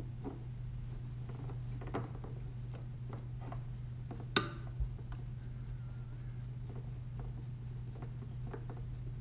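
Small clicks, scrapes and rubbing as robot kit frame parts are handled and fitted by hand, with one sharp click about four seconds in. A steady low hum runs underneath.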